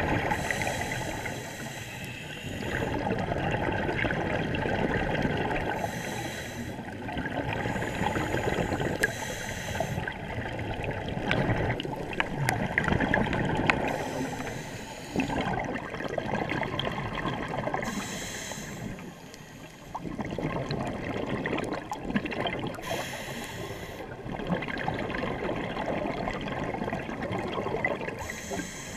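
Scuba regulator breathing underwater: exhaled air bubbling and gurgling out in long rushes, with short high hisses every few seconds.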